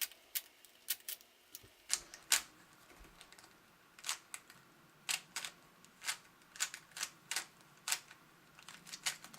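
3x3 Rubik's cube being turned by hand: irregular sharp plastic clicks, a few a second, as the layers are twisted.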